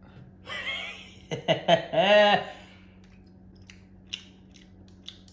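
A man biting into and chewing a crunchy puffed-grain snack with dried boba pearls: a crunch as he bites, a short hummed 'mm' about two seconds in, then scattered small crunches as he chews.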